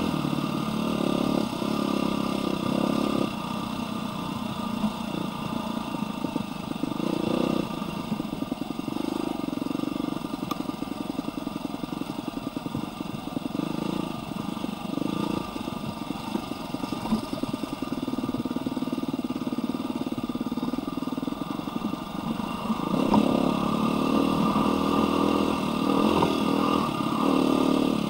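Dirt bike engine running while being ridden over rough dirt trail, its revs rising and falling with the throttle. The engine note drops to a lower, choppier pace a few seconds in and picks up again near the end.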